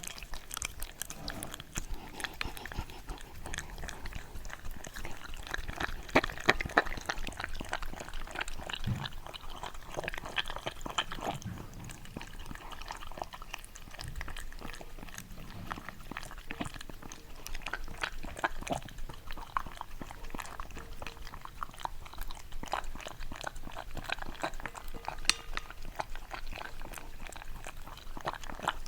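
A Shiba Inu chewing and crunching close to the microphone, a dense irregular run of sharp crunches and clicks.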